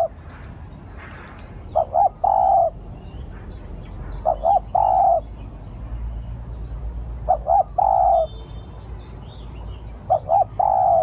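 Spotted dove cooing: a repeated phrase of two short coos followed by one longer coo, given four times about three seconds apart.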